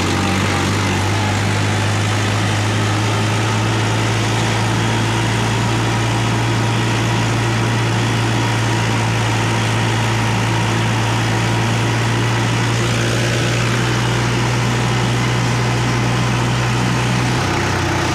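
Tractor's diesel engine running steadily as the tractor drives up a hill road, labouring under a heavy load. Its note changes about a second before the end.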